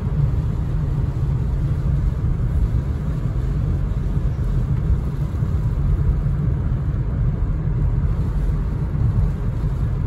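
Steady low rumble of a car driving on a rain-soaked road, heard from inside the cabin: engine and tyre noise on wet pavement.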